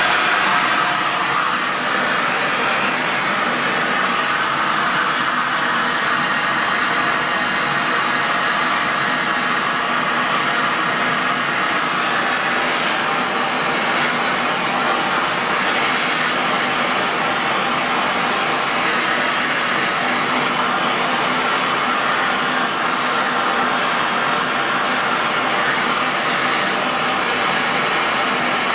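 Handheld gas soldering torch burning with a steady, a little loud hiss as its flame heats a copper pipe and fitting for sweat soldering.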